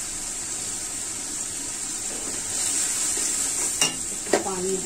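Onion, garlic and spice masala sizzling in oil in a steel karahi, stirred with a metal spatula, a steady hiss throughout. A sharp clink of the spatula against the pan comes near the end.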